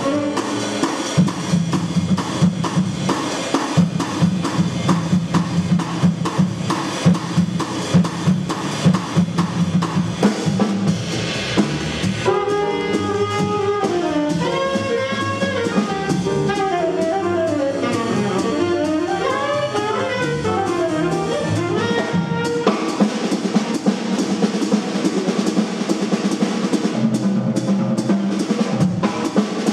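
Live small-group jazz: two tenor saxophones, piano, double bass and drum kit playing a blues. The drums lead for the first stretch, a saxophone line stands out from about twelve seconds in for some ten seconds, then the drums come to the fore again.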